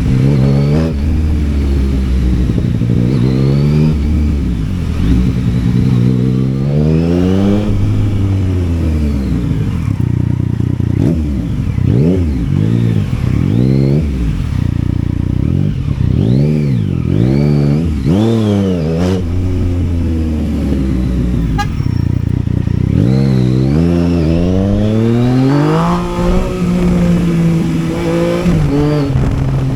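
Yamaha Tracer 900's three-cylinder engine revving up and down repeatedly while riding, its pitch climbing and dropping many times with quick throttle blips through the middle, a steadier spell, then a climb near the end.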